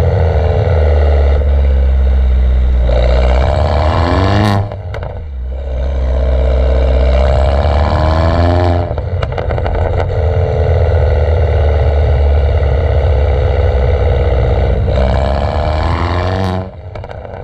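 Mini Cooper JCW R56's turbocharged four-cylinder heard at its twin tailpipes through a decatted, non-resonated exhaust while driving. The engine note climbs in pitch under acceleration three times and runs steadily in between, with a sharp pop as the throttle shuts about four seconds in and again near the end.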